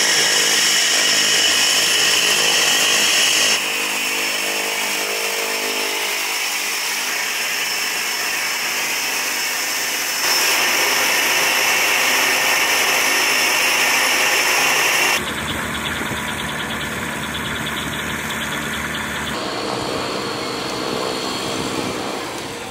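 Cessna 208B Grand Caravan's PT6A turboprop engine running on the ground, a steady high turbine whine over propeller noise. The level and tone change abruptly several times.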